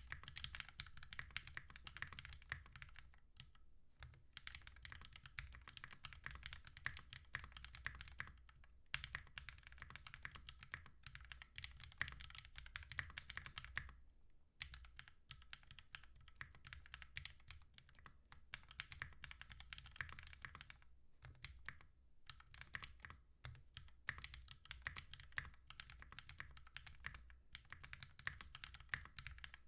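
Typing on a Mode65 65% mechanical keyboard fitted with GMK keycaps: fast runs of key presses in bursts, broken by short pauses every few seconds, with a sound the builder calls very thocky.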